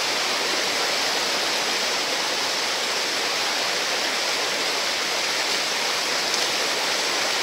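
Whitewater rushing steadily over a rocky ledge and churning through a river hole, running high on a dam release. It is one even, unbroken rush throughout, with no separate splashes standing out.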